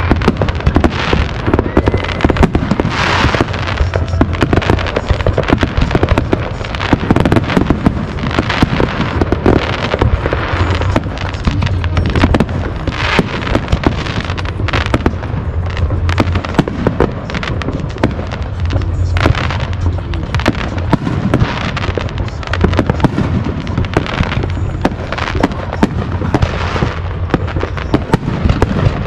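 Many aerial fireworks going off at once: a dense, continuous barrage of bangs and crackling pops with no break.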